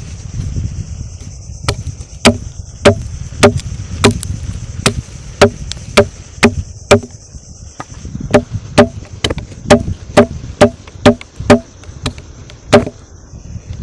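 Repeated sharp tool blows, about two a second in two runs of around ten with a short pause between, each with a brief ringing tone, like chopping or pounding with a blade or hammer. Wind rumbles on the microphone and a steady high insect drone runs underneath.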